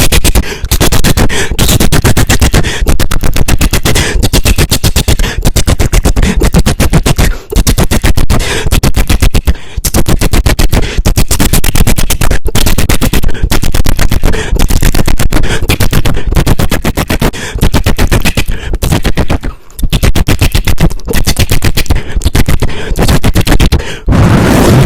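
Loud, close-miked eating: a rapid, continuous run of crisp crunching and chewing clicks, broken by a few short pauses.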